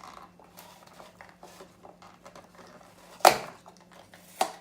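A GoPro camera and its box packaging being handled while the camera is worked loose from its sticky mount: light rustling and small clicks, then two sharp knocks, the first about three seconds in and the loudest.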